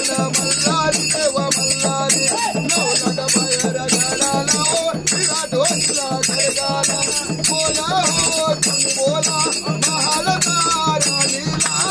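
A man singing a Hindu devotional bhajan, his melody sliding up and down, over hand percussion keeping a fast, steady beat.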